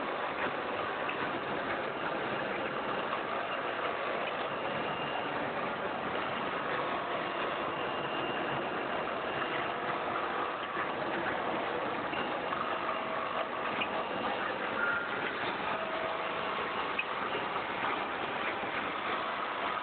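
Vertical auger-filler flour packing machine running steadily, a continuous mechanical hum with a few faint ticks.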